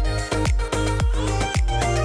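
Background music with a steady dance beat: a deep kick drum about twice a second under a pitched melody.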